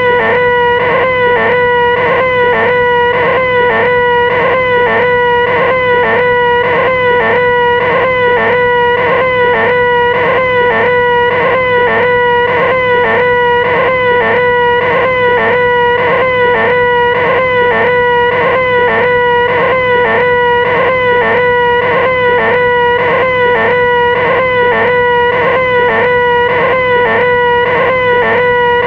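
A person's voice making the 'most annoying sound in the world': a loud, nasal, whining 'ahhh' drone held unbroken at one steady pitch, with a quick regular wobble about two or three times a second.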